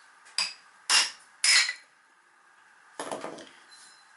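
Chisel being struck to knock open a lawn bowl along its saw cut: four sharp knocks on the hard, dense plastic, the second and third loudest, the last after a pause of about a second and a half.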